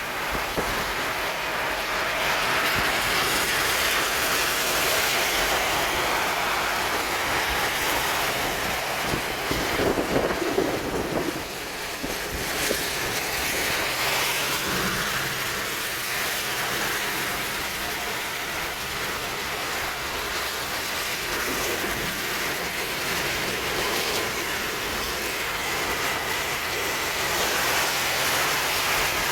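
Steady rush of wind, rain and tyre noise from inside a car driving on a wet highway through a windstorm.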